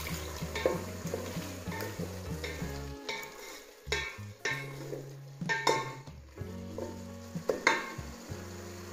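Wooden spoon stirring and scraping in an aluminium pot of fish frying in tomato sauce, the sauce sizzling underneath. Several sharper scrapes and knocks of the spoon against the pot come through, the loudest near the end.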